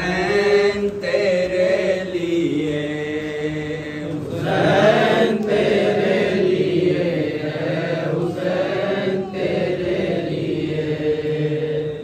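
Men's voices chanting a noha, an unaccompanied Urdu lament for Imam Hussain, held in long sustained lines with short breaks for breath.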